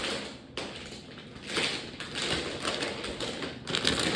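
Clear plastic packaging crinkling and rustling in several surges as an item is pulled out of it by hand, with a few light taps.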